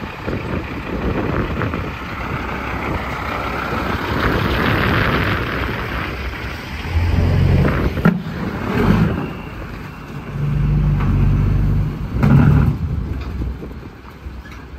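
Heavy diesel trucks and machinery running. A rushing noise about four to six seconds in, then the engine sound swells at about seven seconds and again from about ten to twelve and a half seconds.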